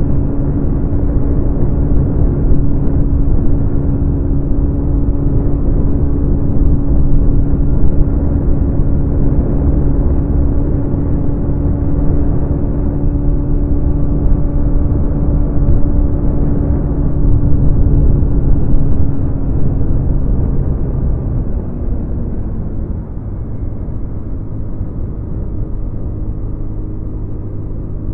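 Honda Dio scooter's engine running through its stock exhaust while riding, a steady hum with road rumble. After about twenty seconds the engine note drops and it gets quieter as the throttle eases off.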